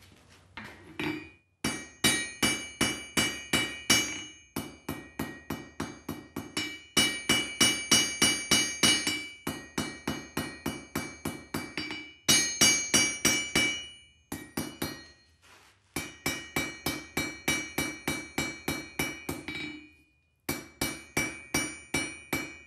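Blacksmith's hand hammer striking a hot quarter-inch bar on an anvil, in quick runs of about four blows a second broken by short pauses, each blow ringing. The bar's end is being drawn out thin and flattened for a jelly-roll scroll.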